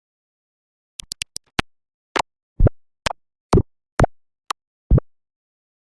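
Cartoon sound-effect pops: five quick ones in about half a second, then seven more spaced about half a second apart.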